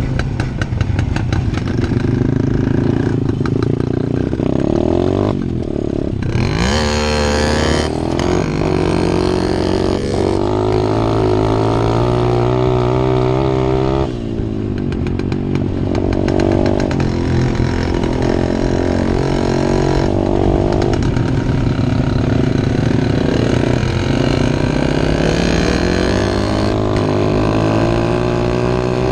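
Two motorcycle engines riding off-road: a 125 cc pit bike close by and a Jawa 250 two-stroke single ahead. Their pitch rises and falls as they rev and change gear, with an abrupt break in the sound about halfway through.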